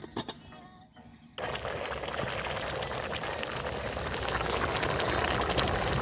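Food cooking in a pot over a campfire: faint clicks, then about a second and a half in a steady sizzling hiss with scattered ticks starts suddenly and swells slightly.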